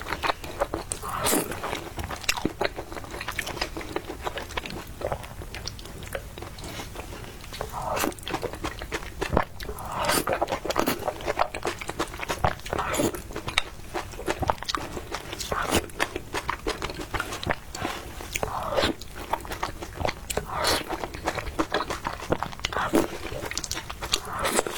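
A person eating: chewing and biting food, with many short sharp clicks.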